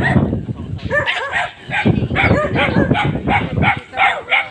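A dog barking repeatedly: a quick run of short barks, about three a second, starting about a second in.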